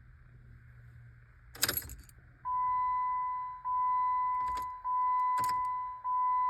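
Keys jangle and click as the key is turned in a 2010 Jeep Patriot's ignition, but the engine does not crank. Instead the dashboard warning chime starts about two and a half seconds in and repeats steadily, about one chime every second and a bit. It is a no-start with no starter response, which the owner blames on the immobilizer.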